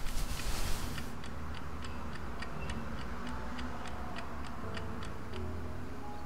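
A clock ticking at a steady, even pace, with a low hum underneath.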